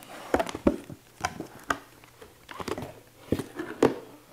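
Hands opening a cardboard box lid and pulling out a flat packaged item: a string of light knocks, taps and rustles of cardboard and packaging, with the sharpest knocks about two-thirds of a second in and near the end.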